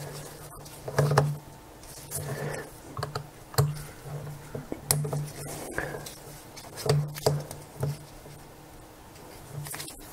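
Irregular light clicks and scratches of a small screwdriver turning the tiny screws that hold a lens retaining ring, with the plastic lens barrel being handled.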